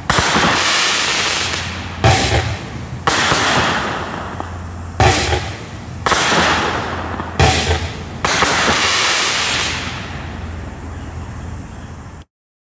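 Black Cat Neon Cowboy 126-shot consumer fireworks cake firing: about seven sharp volleys, one to two seconds apart, each followed by noise that fades over a second or two. The sound cuts off suddenly near the end.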